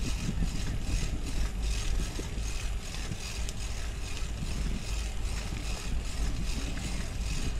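Wind buffeting the microphone while riding a bicycle: a steady low rumble with a hiss over it.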